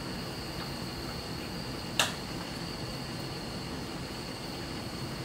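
Steady outdoor background with a constant high insect drone, and one sharp click about two seconds in from a utensil knocking a ceramic bowl of rice and stew.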